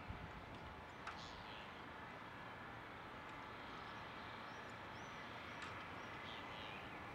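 Faint, steady outdoor background noise with a few brief, high bird calls scattered through it.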